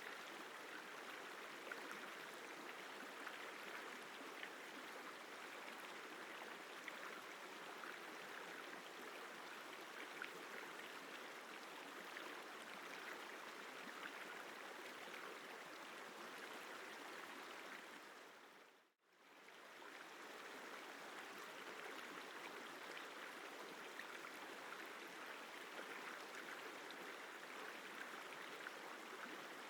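Isar River water flowing, a steady rushing sound. About two-thirds of the way through it fades briefly to silence and straight back in.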